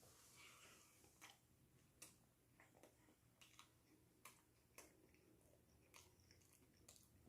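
Near silence with faint, irregular clicks of someone chewing food.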